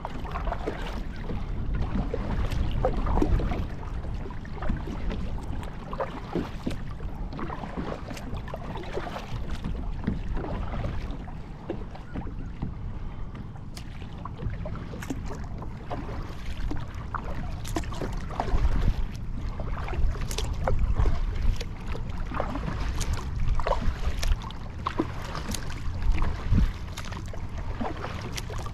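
Water splashing and lapping around a Field & Stream Eagle Talon 12 kayak, with irregular small splashes and knocks, over a steady low rumble of wind on the microphone.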